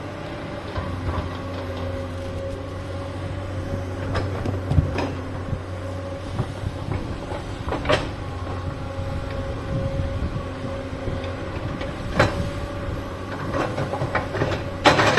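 Excavator's diesel engine running steadily with a low hum and a faint steady whine, with a few sharp knocks and clanks.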